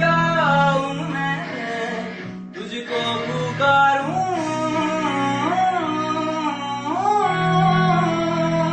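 A song: a sung melody with no clear words, gliding between notes over guitar and a steady low drone, with a brief break about two and a half seconds in.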